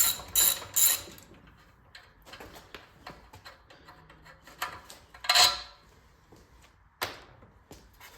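Ratchet wrench clicking in an even rhythm for about the first second, working on an engine being torn down. Then come scattered small clicks and knocks of tools and parts, with a louder clatter about five seconds in and a sharp click about two seconds later.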